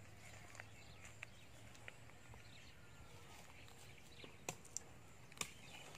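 Near silence: faint outdoor background with a low steady hum, broken by a few sharp clicks in the last second and a half.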